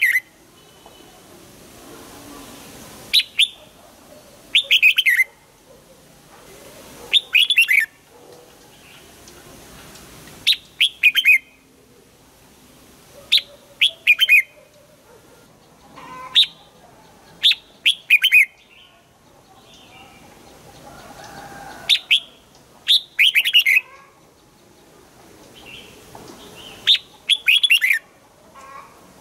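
Red-whiskered bulbul singing short, loud phrases of quick sweeping whistled notes, coming every one to three seconds and sometimes in quick pairs.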